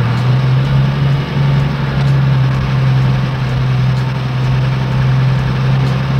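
Heavy vehicle engine idling steadily, a loud low hum that holds one pitch throughout.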